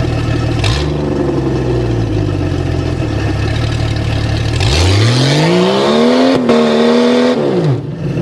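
Off-road vehicle's engine running under load, then revved hard about halfway through: its pitch climbs steeply, holds high for a couple of seconds, and drops back. The vehicle is trying to climb a rock obstacle while hung up on its passenger-side rocker panel. A short knock sounds about a second in.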